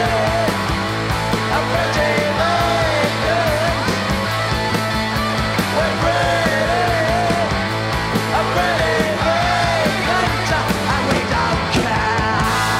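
Live band playing: electric and acoustic guitars with a drum kit, a wavering melody line over a steady low figure and regular drum hits.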